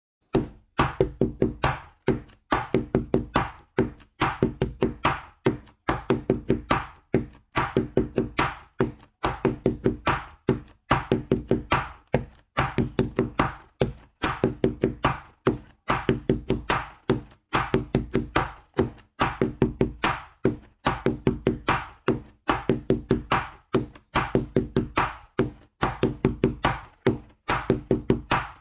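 Background music: a steady, repeating loop of quick tapped or plucked percussive notes in short runs, over a low pitched bass line.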